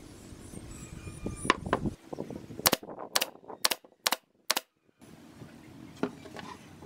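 Nail gun firing five times in quick succession, about half a second apart, driving nails through a square wooden cap into the top of a wooden post.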